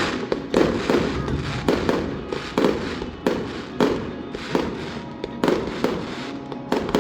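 Fireworks shells bursting one after another, roughly one to two booms a second, each trailing off.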